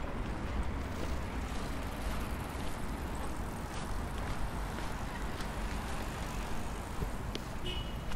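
Steady low outdoor rumble of traffic and wind. A few faint clicks come through, and a short high chirp sounds near the end.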